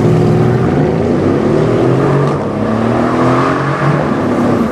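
Tuned Mercedes CLS 63 AMG V8 through a custom loud exhaust, running under throttle, its engine note dipping and then climbing again in pitch.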